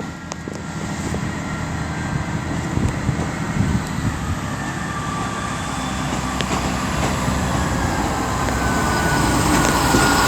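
Two coupled Class 158 diesel multiple units pulling away under power, their diesel engines running and growing steadily louder. A thin high squeal comes in near the end.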